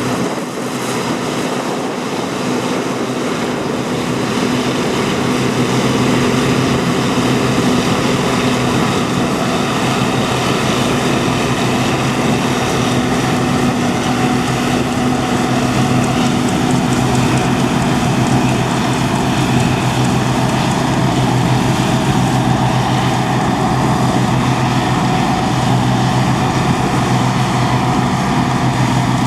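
Heavy diesel farm machinery running steadily: a constant low engine drone with a faint hiss over it, growing slightly louder over the first few seconds.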